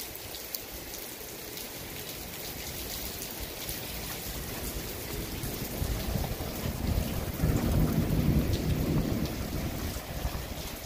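Steady rain with dripping, and a roll of thunder that builds about six seconds in, is loudest a couple of seconds later and dies away near the end.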